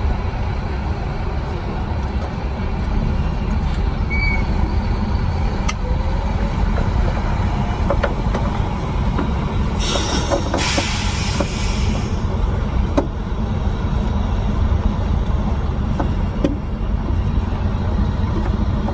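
Steady low rumble of heavy vehicles, with a hiss of air for about two seconds near the middle, like a semi-truck's air brakes releasing. A few light clicks.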